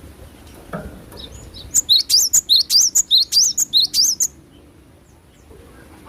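Cinereous tit (glatik batu) calling: a fast run of sharp, high chirping notes, about five a second, starting about a second and a half in and lasting around two and a half seconds. A soft low knock comes just before it.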